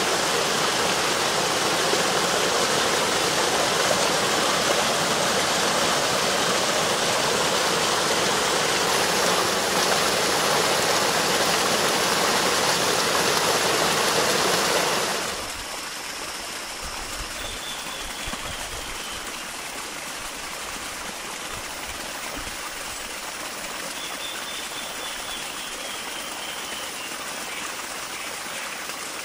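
Rushing water of a small waterfall splashing over rocks, a steady, even hiss. About halfway through it drops suddenly to a softer steady flow of water, with two faint, high, falling whistles later on.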